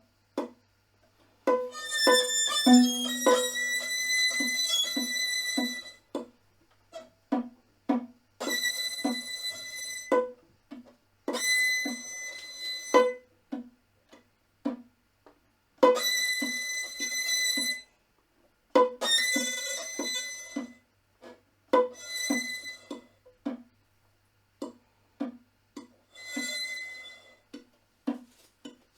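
Instrumental music: held high violin-like notes, each lasting one to two seconds with short gaps between, over a steady line of short plucked low notes.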